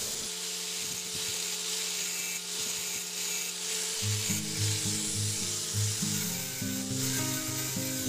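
Angle grinder running steadily against a rusted steel bolt on a washing-machine gearbox, a motor hum with a gritty grinding hiss as the seized bolt is cut away. Background music with a stepping bass line comes in about halfway.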